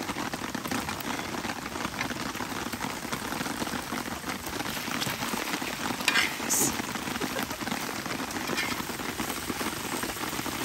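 Squid and green-onion pancake sizzling steadily in oil on a round griddle. About six seconds in, a metal spatula scrapes across the pan as the pancake is turned.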